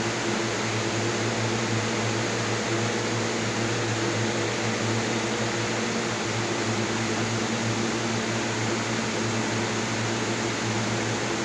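A steady low hum with a hiss over it.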